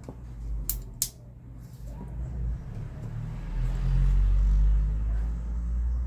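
A low rumble that swells to its loudest about four to five seconds in, over a steady low hum, with two sharp clicks a little under a second in.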